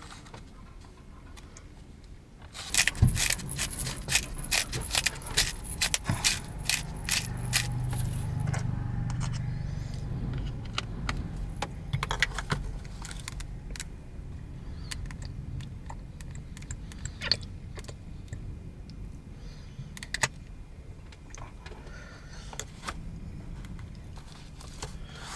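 Small metal pieces jingling and clinking in a dense flurry of sharp clicks, starting a couple of seconds in and thinning out to scattered single clicks after about ten seconds.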